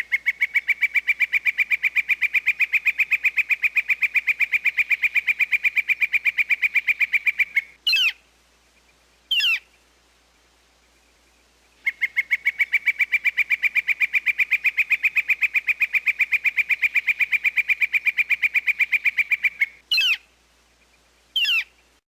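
Red-shafted northern flicker giving its long call: a rapid, even series of loud notes, several a second, held for about seven seconds, then two short single calls. The whole sequence plays twice.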